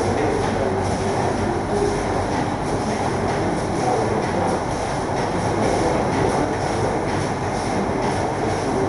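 Plastic bag factory machinery running, with the blown-film extrusion line and printing presses going at once: a loud, steady mechanical din with a faint regular clatter on top.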